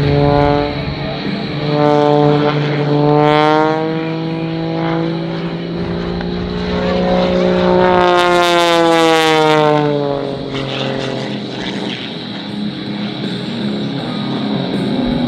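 Aerobatic stunt plane's piston engine and propeller, the pitch rising and falling as it manoeuvres. Around eight seconds in it passes close and loud, and the pitch then drops away.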